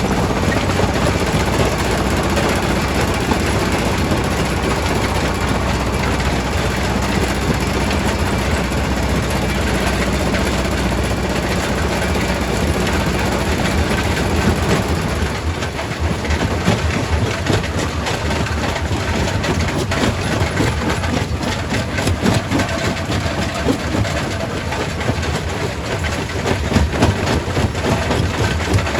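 Quarry primary rock crusher running with a loud, steady heavy-machine drone. From about halfway through, a dense, irregular clatter of rock being broken and knocking about joins in.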